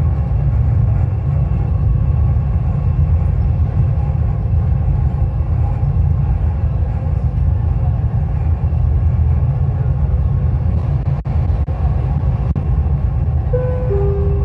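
Dubai Metro train's steady low running rumble, heard from inside the front car as it travels along the elevated track. Near the end a short two-note chime sounds, the second note lower.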